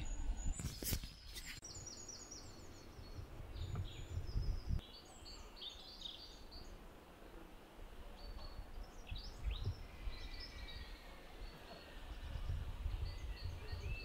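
Woodland birds singing and calling in short, scattered phrases over a low rumble, with a couple of sharp knocks about a second in.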